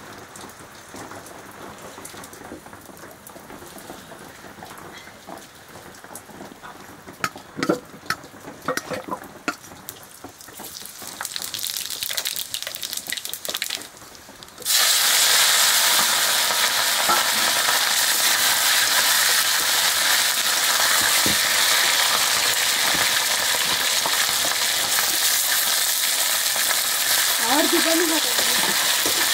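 Food frying in hot oil in a cooking pot: quiet clicks and a slowly growing hiss at first, then about halfway through a sudden, loud, steady sizzle.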